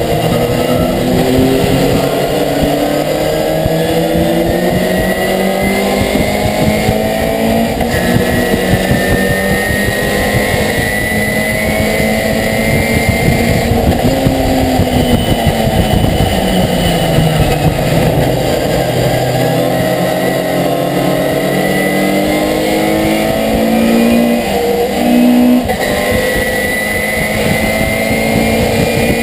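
Racing pickup truck's V8 engine heard from inside the cab at race speed, the pitch climbing through the gears and falling as it brakes and shifts down for corners, over steady road and wind noise.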